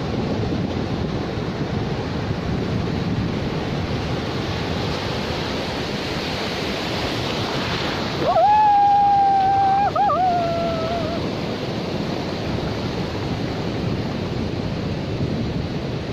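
Ocean surf washing in the shallows, with wind buffeting the microphone. About eight seconds in, a woman lets out a long, level high note through pursed lips, lasting about three seconds and wavering near its end.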